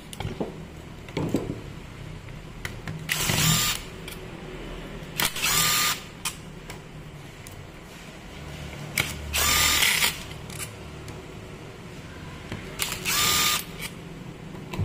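Makita cordless impact driver run in four short bursts of about a second each, each ending in a brief whine, driving out the screws that hold an angle grinder's gear housing.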